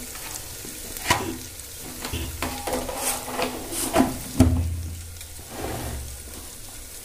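Steel spoon stirring and scraping spice masala frying in oil in an open pressure cooker, the masala sizzling. The spoon knocks and scrapes sharply against the pot about a second in and again around four seconds in.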